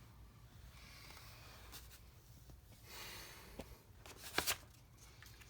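Cricut cutting machine running: a steady low hum with two brief swells of whirring and a few sharp clicks, the loudest a quick cluster of clicks near the end.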